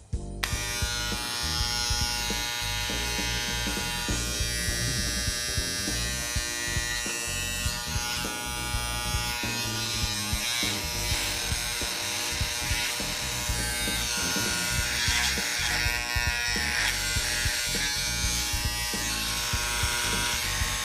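Andis T-Outliner hair trimmer with a Silver Horse replacement blade held on by the original round-head screws, switched on about half a second in and buzzing steadily. The owner finds this sound just okay but a little loud, with rough vibration in the hand.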